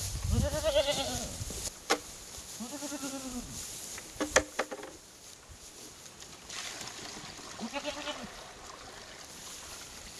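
Goats bleating several times, each call rising and then falling in pitch, with a few sharp knocks, the loudest about four seconds in. Near the end, water is poured from a bucket into a tub.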